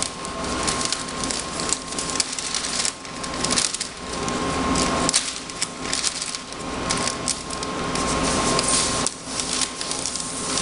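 A large sheet of hydrographic water-transfer film crinkling and rustling as it is handled by hand: a dense run of crackles that swells and eases in waves.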